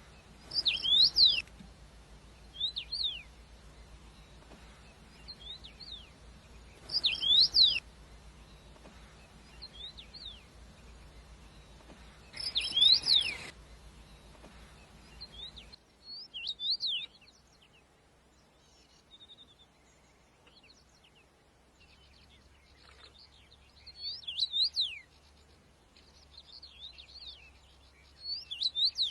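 Birds chirping: short phrases of sharp, quickly falling chirps, the loudest ones repeating about every six seconds for the first half, with softer, more scattered calls in between and afterwards.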